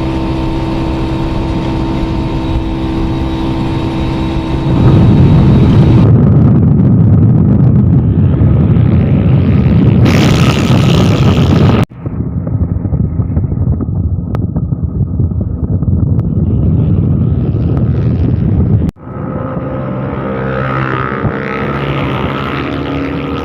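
Motorboat engine running steadily, then opening up and getting much louder about five seconds in, with the engine's note held under load. The sound breaks off abruptly twice, around the middle and two-thirds of the way through, and picks up again each time.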